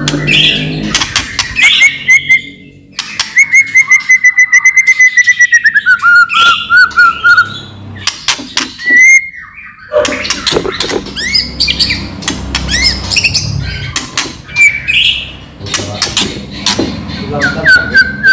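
White-rumped shama singing loudly, mixing sharp clicking rattles with whistled phrases. A few seconds in it delivers a long, fast series of repeated notes, about a dozen a second, that slides down in pitch.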